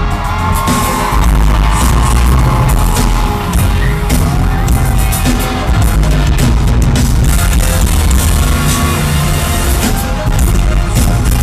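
Live band music played loud over an arena sound system, recorded from the audience: a heavy, steady bass line under repeated drum hits.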